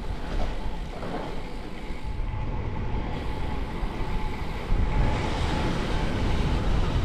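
Street riding noise from a bicycle-mounted camera: wind on the microphone and passing road traffic, a steady rumbling haze heaviest in the low end, with a faint steady whine through the middle.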